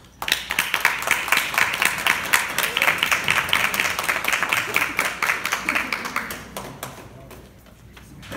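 Audience applauding: the clapping breaks out suddenly, holds steady, then dies away about a second before the end.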